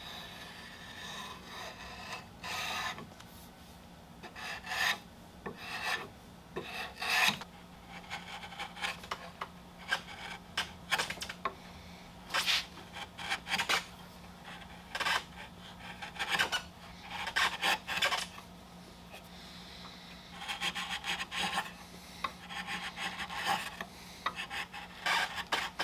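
A freshly sharpened vintage chisel pared by hand across a maple block, cutting a chamfer and slicing end grain. It makes a few dozen short, crisp scraping strokes in quick runs with pauses between. These are test cuts of the newly honed edge.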